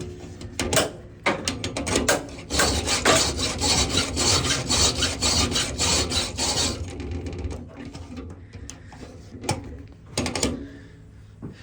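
Hand file stroking across saw teeth held in a sharpening jig. There is a quick, dense run of scraping strokes in the first seven seconds, then fewer, separate strokes.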